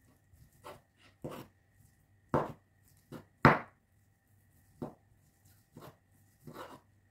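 Knife cutting cooked chicken breast on a wooden cutting board: about eight irregular knocks of the blade against the board, the loudest about three and a half seconds in.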